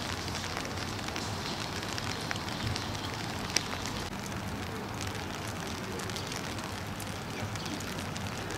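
Steady hiss of light rain with scattered drops ticking, and one sharper click about three and a half seconds in.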